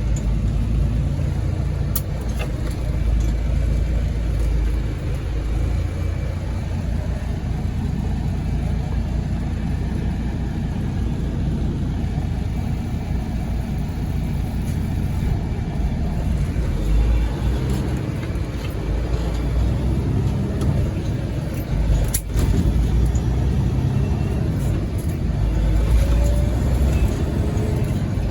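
Semi truck cab interior while driving: a steady low rumble of engine and road noise, with a couple of brief clicks.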